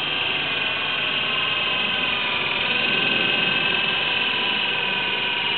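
Air Hogs Gryphon toy RC helicopter in flight, fitted with a different battery and rear rotor: its small electric motors and rotors whine steadily, the pitch wavering slightly as it flies into the breeze.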